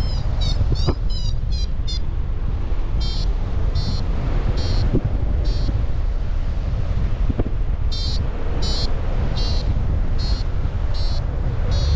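Wind buffeting the microphone in flight, over it a paragliding variometer beeping, the sign of climbing in lift. Quick rising chirps at first, then beeps spaced a little under a second apart, with a pause of about two seconds midway.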